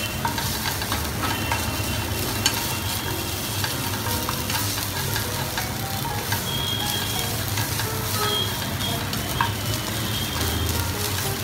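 Ginger, garlic and green chilli sizzling steadily in a little hot oil in a non-stick pan, stirred with a wooden spatula that scrapes and taps against the pan now and then. A steady low hum runs underneath.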